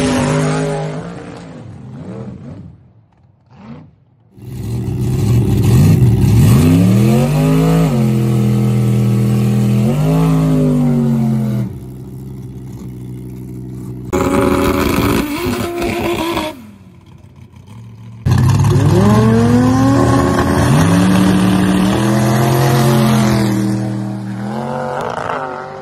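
Race car engines revved up at the start line: the pitch climbs and then holds level at high revs. The sound comes in three separate stretches joined by abrupt cuts.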